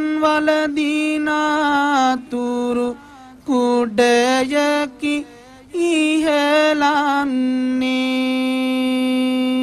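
Buddhist monk chanting Sinhala kavi bana verse in a melodic, ornamented solo voice, in short sung phrases with brief pauses, ending on one long held note from about seven seconds in.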